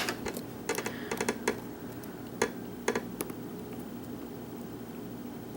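Small, sharp metallic clicks and taps of a lock pick working the pins inside a pin-tumbler lock held in a false set, hunting for the hard-to-reach rear pin. The clicks come irregularly, about a dozen in the first three and a half seconds, then stop.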